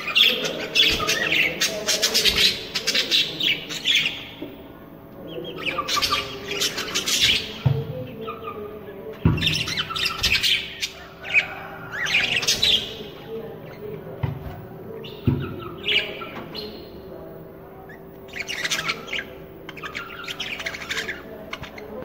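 Budgerigars chirping and squawking in bouts of rapid, high chirps, with a few low knocks in between.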